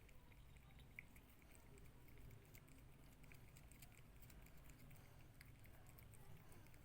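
A cat eating, with faint, irregular small chewing clicks and a sharper click about a second in.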